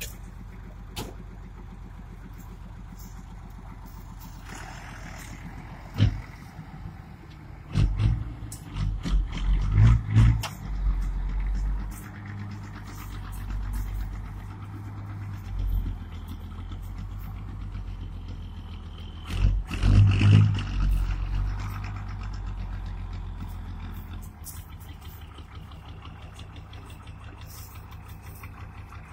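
A large diesel engine idling steadily, with loud irregular low thumps and rumbles coming in clusters through the first two-thirds.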